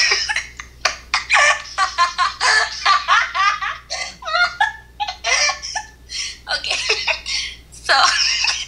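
Hearty laughter in loud, choppy bursts, someone laughing so hard they are short of breath.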